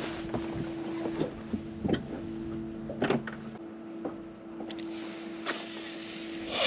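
Bow-mounted electric trolling motor humming steadily, with a few sharp knocks and clicks on the boat deck and a short rush of hiss near the end.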